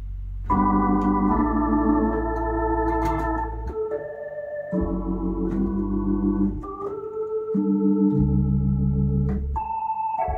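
Hammond H112 tonewheel console organ playing a slow series of held chords over pedal bass notes, through its internal speakers, with full reverb and all three vibratos running together: a very cheesy 70s sound. Faint key clicks come at the chord changes.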